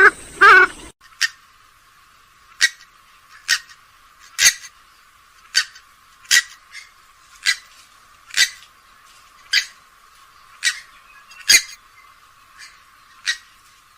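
Grey-headed swamphen calling: a short nasal call with a clear pitch, then a long series of short, sharp call notes repeated about once a second.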